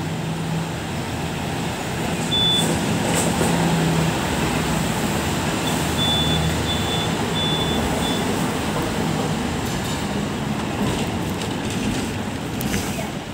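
Hong Kong double-decker electric tram running along its street track, heard from the upper deck: a continuous rumble of wheels on rails, with a low steady hum in the first few seconds. A few short high beeps come about two seconds in and again around six to eight seconds.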